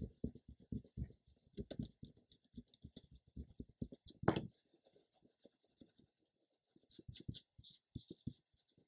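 Fingers and a small block rubbing and pressing glued paper cut-outs flat onto a card: quick scratchy strokes with light knocks. There is a louder single knock about four seconds in, then softer rubbing with a few taps near the end.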